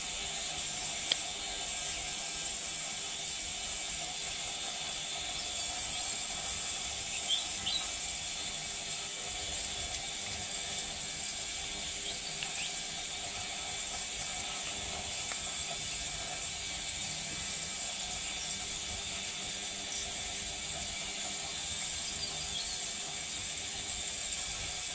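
Ultrasonic parts cleaner running as it warms up: a steady, unchanging hum and high whine made of several steady tones.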